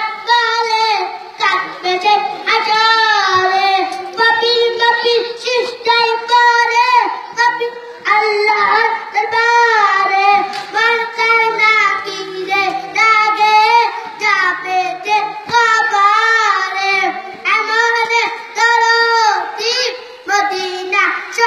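A boy singing a Bengali naat (Islamic devotional song) into a handheld microphone, with no instruments, in long phrases of wavering held notes.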